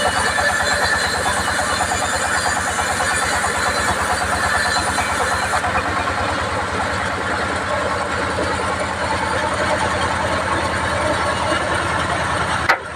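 Engine-driven bandsaw sawmill running: a steady, fast engine pulse under the whir and hiss of the saw. A sharp click comes just before the end, and the sound drops.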